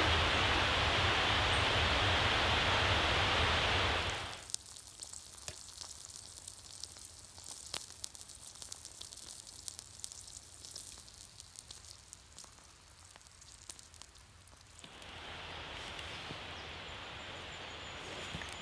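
A steady hiss of outdoor noise, which drops away about four seconds in to a quiet stretch of small crackles and pops from snails sizzling in garlic butter in their shells on campfire embers. A softer steady hiss returns near the end.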